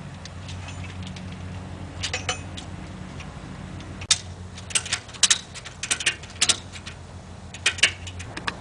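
Tractor engine idling with a low hum that drops away about four seconds in, followed by a run of sharp metallic clinks and rattles in irregular clusters.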